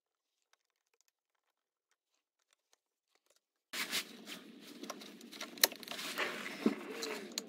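Near silence, then from about halfway, handling noise with many sharp plastic clicks and rustling as gloved hands work the rear high-voltage cable connector of a Toyota RAV4 Prime loose under the car.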